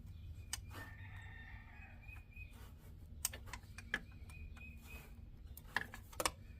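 A rooster crowing faintly, twice, with a few sharp clicks in between.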